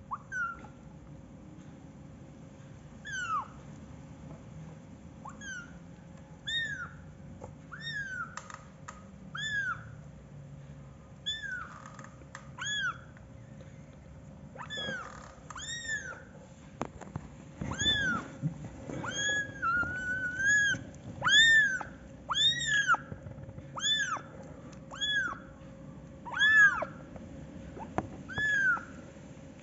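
Young kittens mewing repeatedly in short, high-pitched cries that rise and fall. The cries are spaced out at first and come faster and louder in the second half.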